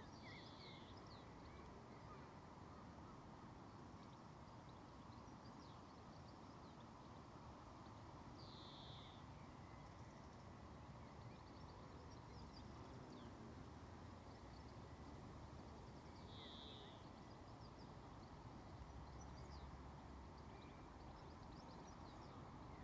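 Near silence outdoors: faint distant birds chirping over a low background hum, with one louder short bird call repeated three times, about eight seconds apart.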